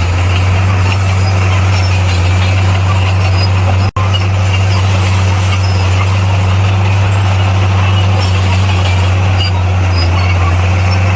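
Bulldozer's diesel engine running steadily with a deep, even hum, broken by a momentary gap in the sound about four seconds in.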